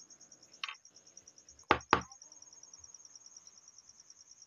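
Small plastic paint jars tapping and knocking on a tabletop as they are handled: a light tap, then two sharp knocks about a quarter second apart. A cricket trills steadily in the background.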